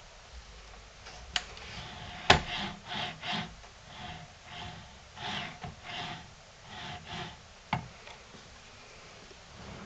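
Homemade MDF CNC machine's carriage moved back and forth by hand, its bearings rubbing and rolling along the aluminium rails in short irregular strokes, with a few sharp clicks; the loudest click comes about a quarter of the way in.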